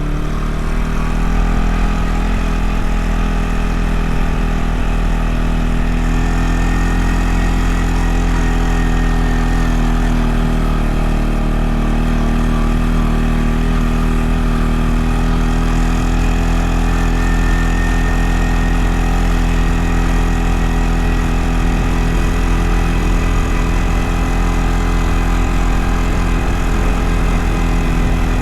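Small farm vehicle's engine running at a steady speed, its pitch dropping slightly about half a second in.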